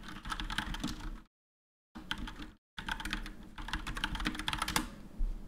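Typing on a computer keyboard: rapid key clicks in three bursts, with two short breaks between them.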